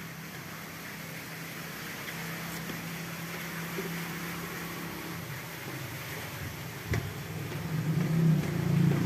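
Steady low engine hum, growing louder near the end, with a single knock about seven seconds in.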